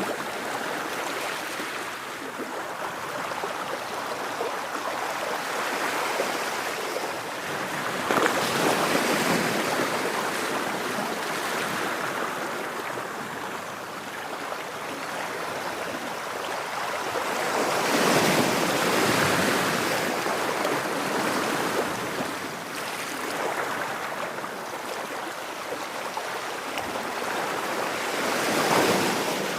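Ocean waves breaking, a surge of surf roughly every ten seconds with the hiss of wash in between.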